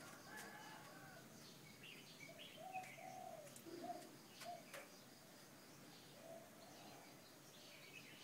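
Faint birdsong: a dove cooing in short, repeated low notes, with higher chirps from small birds and a few faint clicks.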